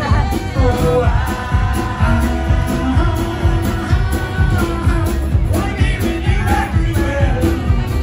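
Live band playing amplified through a PA, a man singing over guitar.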